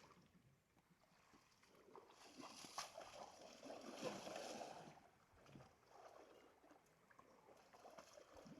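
Near silence: faint background noise that swells for a few seconds in the middle, with a few faint clicks.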